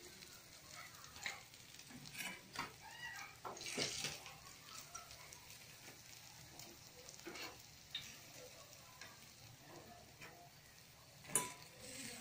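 Faint sizzling of fish frying in hot oil in a metal kadai, with scattered light clicks and knocks from a steel ladle and dish; the sharpest click comes near the end.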